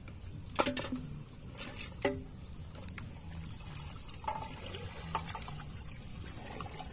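River water sloshing and trickling as a wading man handles and pushes a floating basin hung with plastic bottles. A few sharp knocks, each with a short ring, come over the water; the loudest are about half a second and two seconds in.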